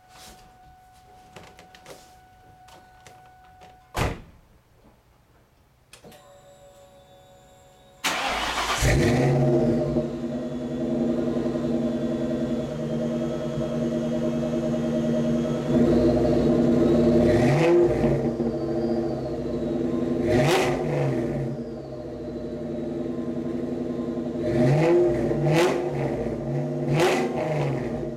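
A supercharged 2003 Ford Mustang SVT Cobra 4.6-litre V8 is cranked over and starts about eight seconds in, after a few quiet clicks. It then idles through an aftermarket Mac cat-back exhaust with an ORX X-pipe and Mac 2.5 flowpath mufflers, and is revved several times in short blips, with a longer rise around the middle.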